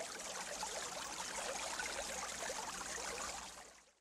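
Running water, like a babbling stream, faint and even, fading out shortly before the end.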